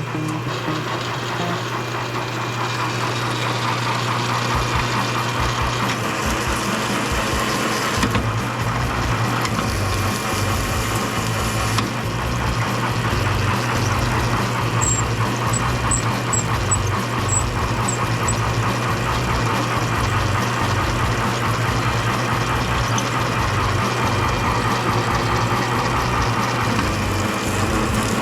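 A motor-driven machine running steadily: a constant low hum over a dense mechanical noise, with a slight change in tone about eight seconds in.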